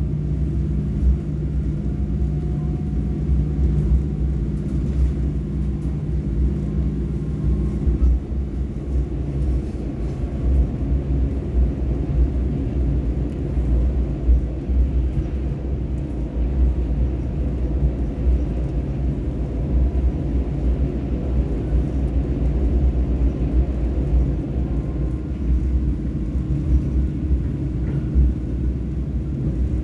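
Inside a Korail Mugunghwa passenger coach running at speed: a steady low rumble of wheels on rail. A faint steady hum fades out about eight seconds in.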